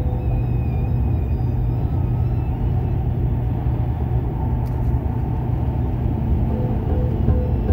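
Steady low rumble of road and engine noise from a car driving on a highway, heard from inside the cabin, with a light click about halfway through.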